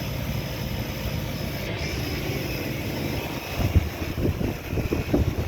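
Steady whirring drone of running outdoor air-conditioner condenser units, their fans and compressors. From about three and a half seconds in, irregular low thumps come in over it.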